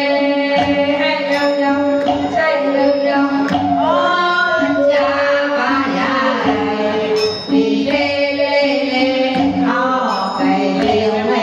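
Traditional Mon song: a voice singing in long, bending, gliding phrases over a traditional ensemble, with steady held notes underneath.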